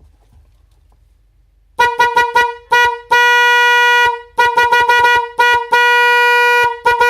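One Bosch Evolution snail (spiral) horn, powered on its own, sounding a single steady pitch. It gives a run of quick short toots, then a long honk of about a second, then more quick toots, another long honk and more toots near the end.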